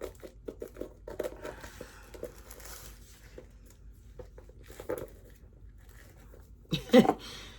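Plastic shrink-wrap crinkling and crackling as fingers pick and pull at it, trying to peel it off a book; it is stuck on and won't come off. A brief louder sound comes about seven seconds in.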